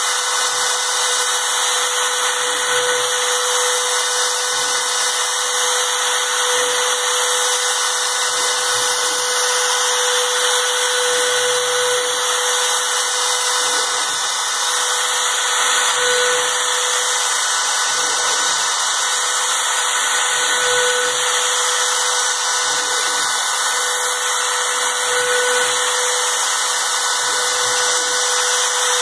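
A power tool running steadily for the whole stretch, its motor holding an even pitch under a constant hiss of cutting or grinding, with no stops or changes in speed.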